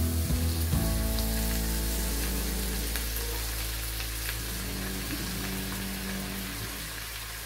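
Chopped onions sizzling in hot oil in a frying pan, a steady hiss with faint spattering ticks, under soft background music with sustained notes.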